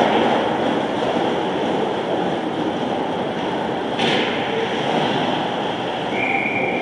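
Indoor ice hockey rink during play: a steady wash of skates cutting the ice and arena noise, with a brief knock about four seconds in. Near the end a referee's whistle sounds a short steady blast, after a goal.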